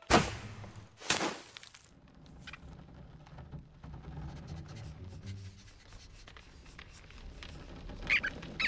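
Cartoon sound effects: two loud rushing noises in the first second and a half, then soft rustles and small clicks over a low rumble, and two short high squeaky chirps near the end.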